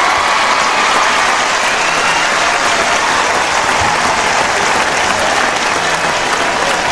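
Large crowd applauding without a break, with cheering voices mixed into the clapping.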